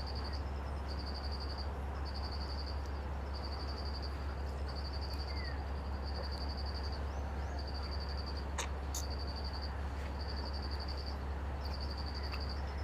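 An insect chirping in regular high-pitched trains, each lasting most of a second and repeating about once a second, over a steady low hum and hiss. Two sharp clicks come about eight and a half seconds in.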